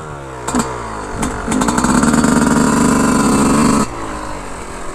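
Yamaha YZ125 two-stroke dirt bike engine running low, then revved up and held high from about a second and a half in, dropping back to a low run just before four seconds.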